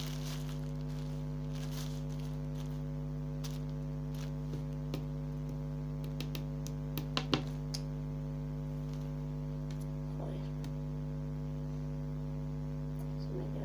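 Steady electrical mains hum with a low buzz, the loudest sound. Over it come a few light crinkles and taps from a sticky plastic bag being handled, clustered around the middle.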